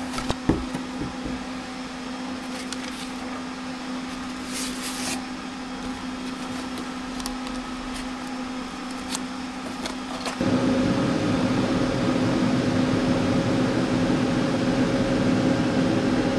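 A cardboard box is opened and handled, with a knock about half a second in and light rustles and clicks, over a steady electrical hum. About ten seconds in, a louder, steady whir of cooling fans takes over: the running Christie cinema projector.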